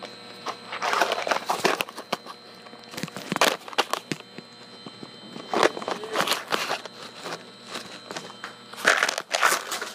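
Handling noise from a phone microphone: the phone is fumbled and rubbed against skin, giving irregular bursts of rustling and scraping, about four clusters. A steady faint electrical hum runs underneath.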